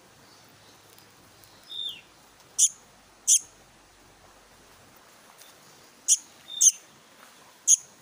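Young black-naped monarch (kehicap ranting) calling: five short, sharp high calls in two groups, with a softer down-slurred note twice.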